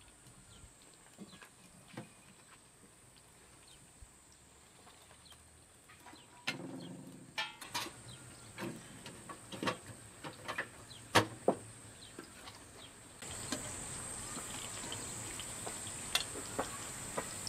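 Metal clanks and knocks from a samovar being handled with metal tongs and its chimney pipe being fitted, a run of sharp hits with the loudest a little past the middle. Then, after a sudden step up in level, the steady hiss of sliced vegetables frying in oil in a pan, with tongs clicking against it.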